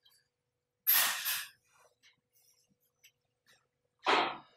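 A man's sharp breath sounds, close to the microphone: a quick double sniff about a second in and a shorter breath near the end.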